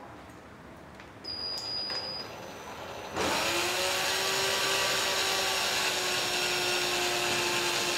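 Power drill-driver driving a screw into a pine block. The motor starts about three seconds in and runs steadily, its pitch falling slightly as the screw goes in.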